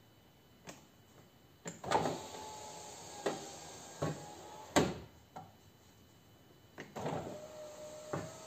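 Several sharp knocks as a Peugeot 407 door trim panel is pressed home, and the electric window motor whining steadily as the glass runs, twice: once from about two seconds in until a loud clunk near five seconds, and again from about seven seconds on.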